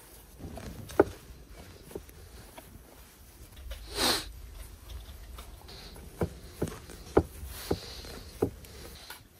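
Hands handling pizza dough on a wooden board: soft handling noise with a handful of sharp pats and knocks, one about a second in and a cluster of five between six and eight and a half seconds in. A short breathy rustle about four seconds in.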